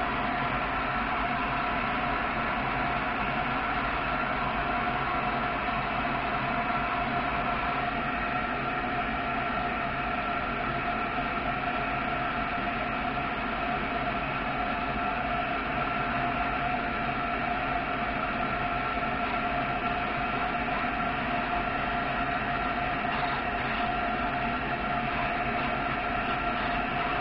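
Shop vacuum running with a steady, even whine while a cordless drill bores out a lead post connection on a forklift battery cell.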